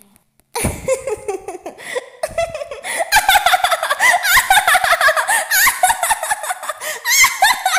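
Several voices laughing at once in high-pitched giggles. They start suddenly about half a second in and grow denser from about three seconds in.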